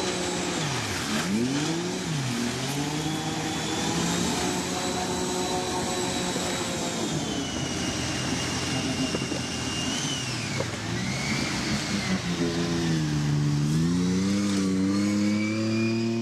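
An engine running and revving, its pitch dipping and climbing several times, with a thin high whine above it.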